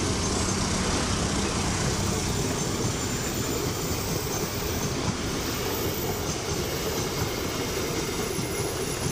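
Passenger train rolling past on the track: a steady rush of wheels running on the rails, easing off slightly toward the end.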